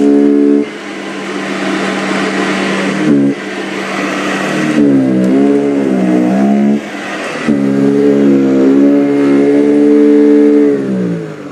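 Sanitaire commercial upright vacuum running with a steady motor hum over a rush of air; the hum dips and wavers in pitch partway through, then winds down near the end as the vacuum is switched off. A noise in the fan is heard during the run, which the owner guesses is a screw.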